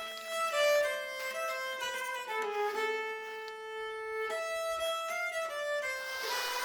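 Background music: a violin melody over string accompaniment, moving from note to note.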